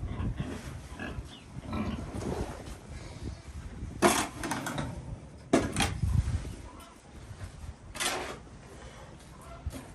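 Pigs grunting and squealing, with three short loud squeals about 4, 5.5 and 8 seconds in.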